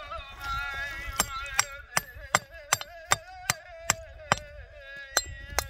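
Hammer striking a stone to chip and trim it, a steady run of sharp metal-on-stone blows, about two or three a second, starting a second in, with a short pause near the end. Music with a wavering melody plays underneath.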